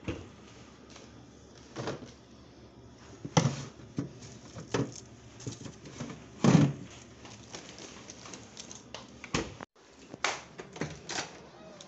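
Knocks and clicks from a refrigerator door being opened and a carton being taken out and handled, scattered about every second. The loudest knock comes a little past halfway, and a few more follow near the end.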